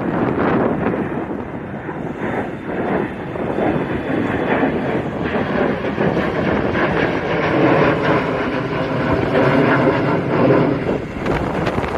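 Jet airliner's engines roaring at takeoff thrust, with strong wind buffeting the microphone.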